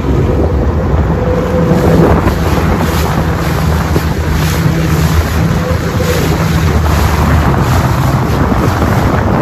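Jet ski engine running steadily, with wind buffeting the microphone and water sloshing around the hull.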